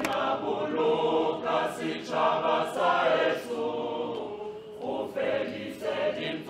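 A choir singing together in phrases, with short breaks between lines.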